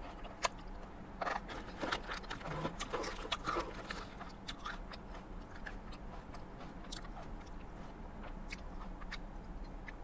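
Close-miked chewing of a mouthful of salad: quiet, wet chewing with small crunches and mouth clicks, busiest in the first few seconds and sparser after.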